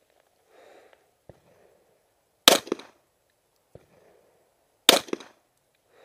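Two handgun shots about two and a half seconds apart, each sharp and loud with a short echo right after.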